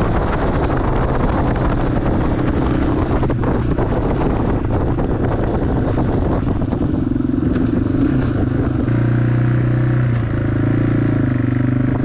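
Yamaha XT225's air-cooled single-cylinder four-stroke engine running steadily under way, with wind buffeting the microphone. The wind eases about seven seconds in, and the engine's even tone comes through more clearly.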